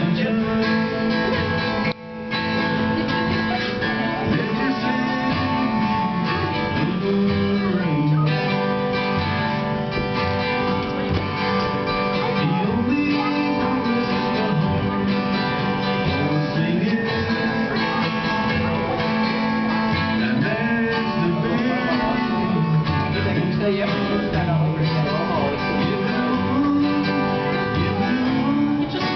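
Acoustic guitar strummed, with a man singing along into a microphone, broken by a brief gap about two seconds in.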